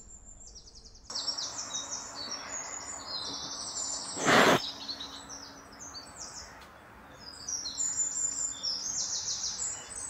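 Small songbirds chirping and trilling in quick, high repeated phrases, with a short loud burst of noise about four seconds in.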